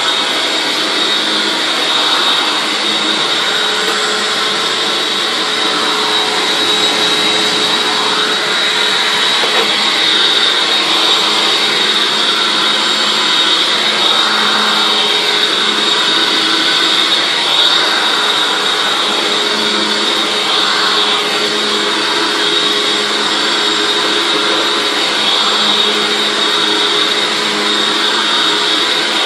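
Hoover Anniversary Edition self-propelled WindTunnel upright vacuum cleaner running steadily, its motor giving a constant high-pitched whine over an even rush of air.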